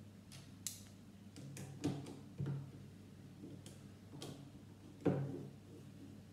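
Plastic Lego plates being pressed onto a build and handled on a wooden table: a string of irregular light clicks and clacks, the loudest about five seconds in.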